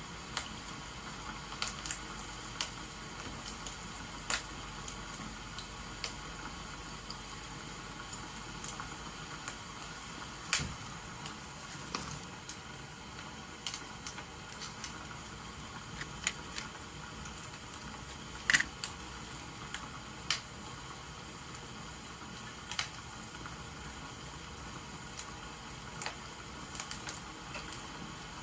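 Crackling wood fire with rain: a steady hiss of rain and irregular sharp pops and snaps from burning logs, one loud snap about two-thirds of the way through.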